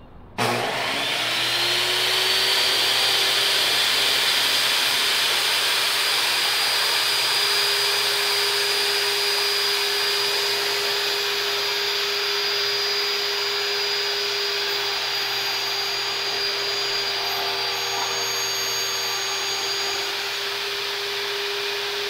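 Table saw switched on about half a second in, its motor spinning up quickly to speed and then running steadily with a constant hum and high whine.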